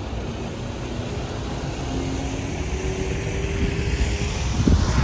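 Jet ski engine running on the river, a steady drone whose pitch rises a little, over low wind rumble on the microphone with a gust near the end.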